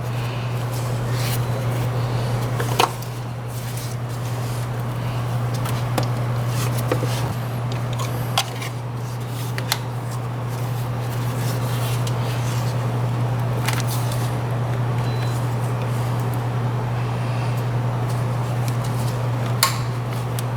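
A plastic air intake tube being handled and pushed back into place in a car's engine bay, giving scattered sharp clicks and knocks, over a steady low hum.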